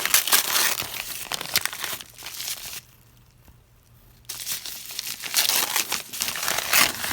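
Candle packaging crinkling and rustling as it is unwrapped by hand, stopping for about a second and a half in the middle, then starting again.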